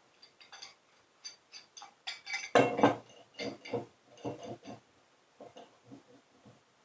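Metal hydrant parts and tools clinking and knocking as they are handled, in short irregular taps, with one louder clunk about two and a half seconds in.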